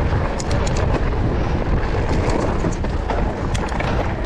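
Mountain bike riding down a rough trail: wind rumbling on the microphone over a steady rush of tyre and trail noise, with scattered sharp clicks and rattles from the bike.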